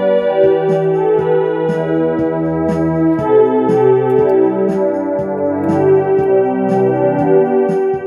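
Electronic keyboard playing a slow hymn in an organ-like voice, held chords shifting under a melody, over a steady light beat.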